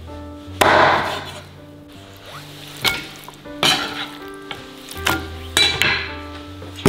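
Meat cleaver chopping raw chicken on a wooden chopping board: a handful of heavy chops at uneven intervals, each with a brief rustling tail, over background music.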